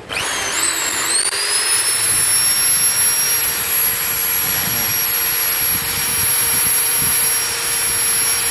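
Total 1010 W corded hammer drill switched on: its motor whines up to speed in about a second, then runs steadily with a high whine over a hiss.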